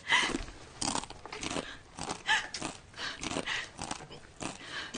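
Two people kissing passionately: repeated wet smacking and sucking of lips with heavy breathing, coming in short irregular bursts, and a brief pitched moan about two seconds in.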